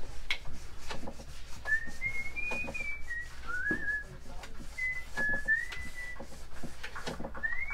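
A person whistling a tune in clear single notes that slide between pitches, starting a couple of seconds in and picking up again near the end, over scattered light taps and clicks.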